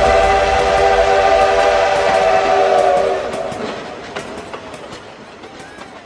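A train-whistle sound effect closing a dance track: a multi-note whistle chord held for about three seconds and then fading, under the clatter of train wheels that fades away.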